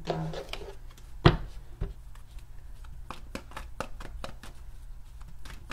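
A tarot deck being shuffled by hand: a sharp knock about a second in, then a quick run of light clicks as the cards slide and slap together.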